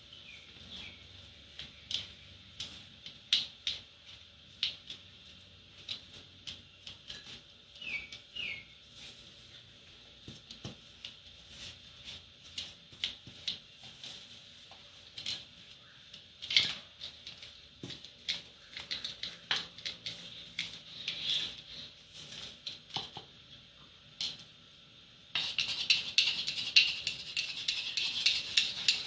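Spatula scraping and knocking against a stainless steel mixing bowl while crumbly pastry dough is stirred, in scattered irregular clicks and scrapes. A denser, steady scraping starts suddenly near the end.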